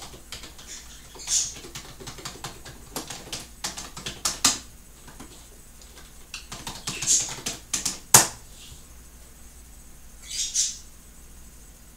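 Irregular handling noises: scattered clicks and taps with light rustling, bunched together a few seconds in, with a few short hissy swishes and one sharp click about eight seconds in as the loudest sound.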